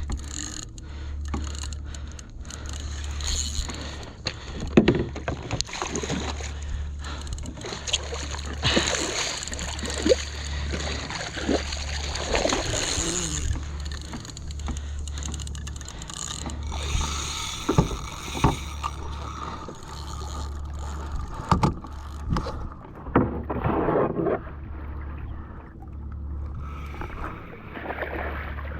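Water sloshing and splashing against a plastic kayak hull, over a steady low rumble, with scattered knocks and clicks.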